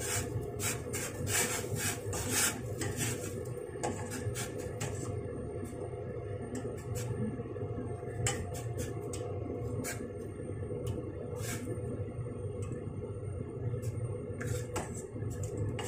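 Metal ladle scraping and clicking against a stainless-steel pot while skimming the scum off parboiling pork ribs, busiest in the first few seconds and then in scattered knocks. Under it, a steady low rumble from the pot on the gas flame.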